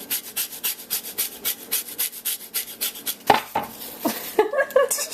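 Knife chopping asparagus on a cutting board: quick, even strokes, about six a second, for about three seconds, then a louder knock and a few scattered kitchen sounds.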